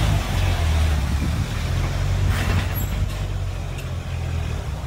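Lifted Jeep Wrangler YJ's engine running at low speed as it rolls in, a steady low engine note.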